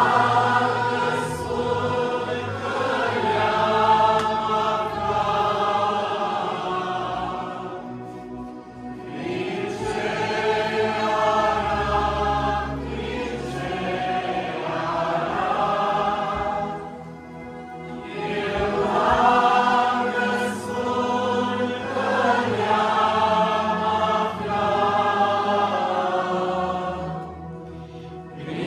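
Choir singing a Romanian hymn in long, sustained phrases, with a short breath pause about every nine seconds.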